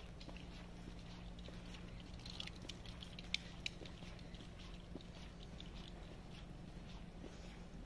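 Faint footsteps on a park path, with two sharp clicks close together near the middle.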